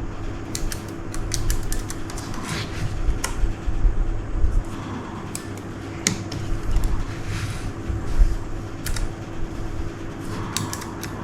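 Keys of a Keychron K3 low-profile mechanical keyboard pressed in scattered clicks and short quick runs, over a steady low hum.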